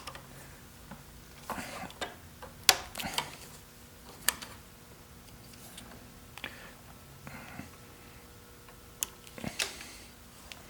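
Scattered sharp clicks and short scrapes of a screwdriver and metal parts as an old wall light switch is unscrewed and worked out of its electrical box. The loudest click comes a little under 3 seconds in.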